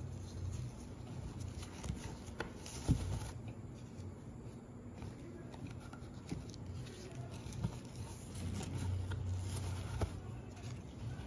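Cotton t-shirt strips rubbing and rustling as they are woven through warp loops on a nail-studded wooden loom, with scattered light knocks, the sharpest about three seconds in. A low steady hum lies beneath.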